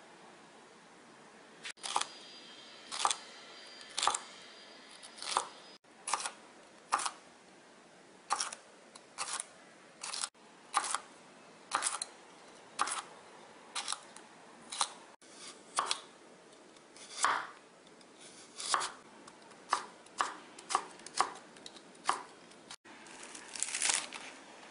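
Chef's knife cutting vegetables on a wooden cutting board: crisp single cuts through green pepper and carrot strips at about one or two a second, in short runs. Near the end comes a quicker cluster of cuts through a bunch of Korean chives.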